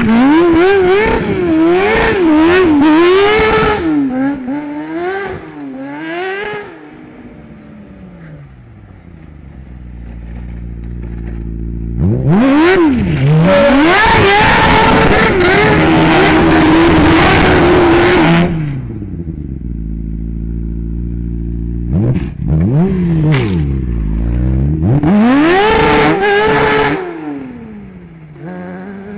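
A vehicle's engine revving hard and dropping back again and again, its pitch swinging up and down. There are three loud spells of revving, with quieter, steadier running in between.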